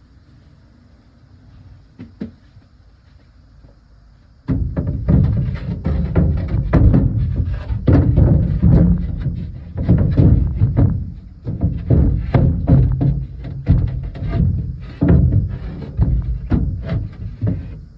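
A single knock about two seconds in, then background music with a steady beat that starts suddenly after about four and a half seconds.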